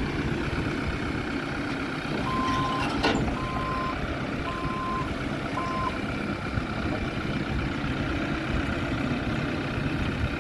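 New Holland B95C backhoe loader's diesel engine running steadily, with its backup alarm beeping four times about a second apart a couple of seconds in, and a single sharp knock between the first two beeps.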